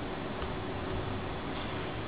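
A couple of faint, short clicks from a plastic pry tool working along the seam of a first-generation iPhone's case, over a steady hiss.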